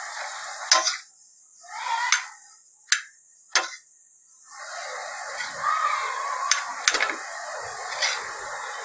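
Mashed boiled potato frying in oil on a flat griddle pan, sizzling as a steel spoon stirs and turns it. The spoon strikes and scrapes the pan in sharp clicks, about half a dozen times.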